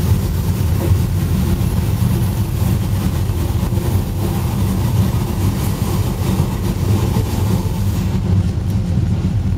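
Steady low rumble of a moving vehicle heard from inside as it travels along.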